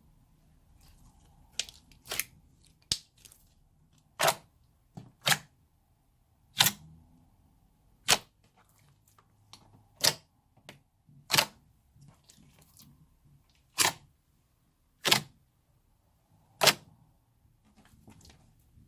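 Clear slime being pressed and played with, giving about a dozen sharp pops a second or two apart as trapped air bubbles burst.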